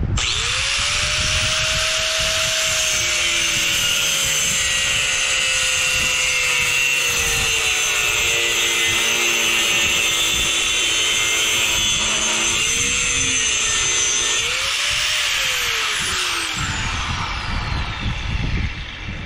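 Angle grinder with an abrasive cutoff wheel spinning up and cutting through aluminum pipe, a steady harsh hiss over the motor's whine. About fourteen seconds in it is switched off and winds down with a falling whine.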